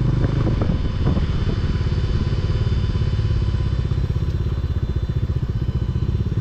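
Motorcycle engine running at low revs with an even, pulsing exhaust beat, with a few light clatters about a second in.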